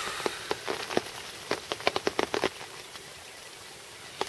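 Rain falling, with a quick, irregular run of sharp taps from drops landing close to the microphone in the first two and a half seconds, then only a steady hiss.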